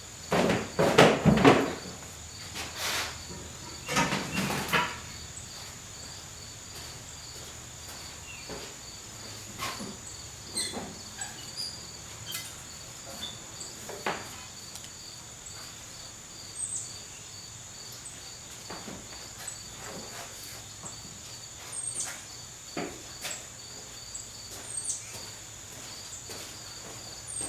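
Knocks and clinks of hand tools and parts being handled while a car chassis is dismantled, loudest in the first five seconds and then sparse. A high chirp repeats about twice a second throughout.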